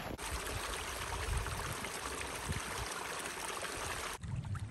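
Small creek running between snowy banks, a steady rush of flowing water that drops away abruptly about four seconds in.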